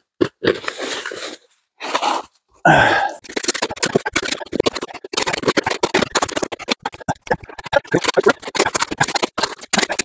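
Shovel digging into deep, crusty snow: a few short scrapes, a louder scoop about three seconds in, then a dense run of rapid crunching.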